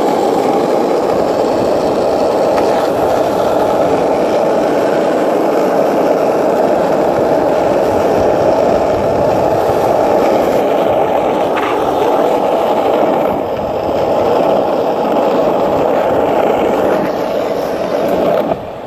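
Skateboard wheels rolling fast over rough street asphalt: a loud, steady rolling noise that falls away just before the end.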